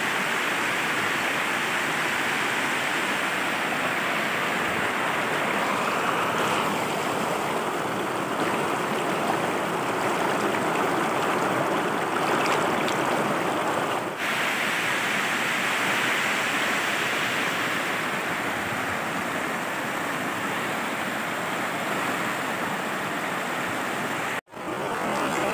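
Muddy floodwater rushing and churning over rocks in a flooded seasonal stream, a steady rush of water noise. It breaks off for a moment twice, about halfway through and near the end.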